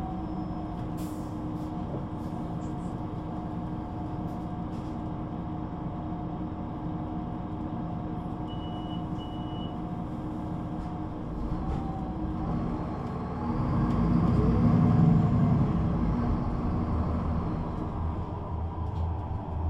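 Solaris Urbino 18 III articulated bus heard from inside the passenger compartment: its DAF engine runs with a steady hum, and two short high beeps sound about halfway through. About two-thirds of the way in, the engine grows louder for a few seconds as the bus accelerates, then settles again near the end.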